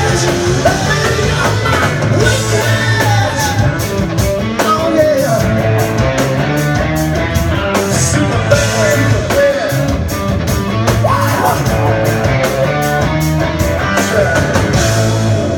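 Live rock band playing loudly: electric guitar and drum kit, with a lead voice over them.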